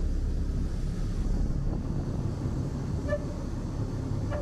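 Small river ferry's motor running with a steady low drone. Two short high beeps sound over it, about three seconds in and again near the end.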